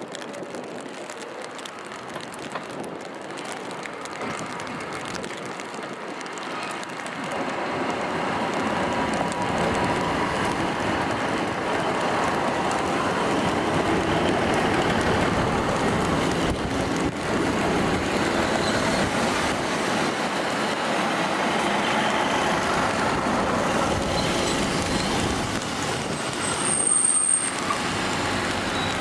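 A two-unit diesel multiple unit train, a Class 150 coupled to a Class 156, running past on the rails. Its engine and wheel noise builds to a steady loud rumble as it draws alongside. A brief high-pitched squeal comes near the end.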